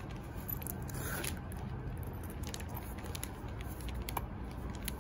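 Handling noise from a leather sling bag: faint rasps and small clicks as its metal zipper is pulled open, over a steady low background hum.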